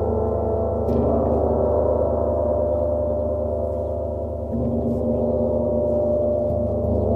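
Bifrost titanium gong and Water Gong ringing in a sustained, dense wash of overlapping steady tones. The gongs are struck again about a second in and again a little past the middle, each stroke renewing the swell.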